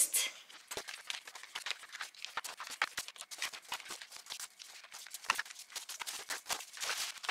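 Small cardboard cosmetic boxes being taken out of a carton of packing peanuts and set down one after another on a tile floor: a run of quick, irregular light taps and clacks.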